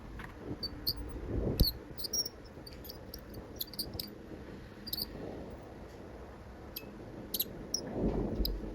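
Ultrasonic cutter blade working into a hard 3D-printed plastic part: scattered, irregular high-pitched chirps and ticks as the blade meets the plastic, with a knock about one and a half seconds in.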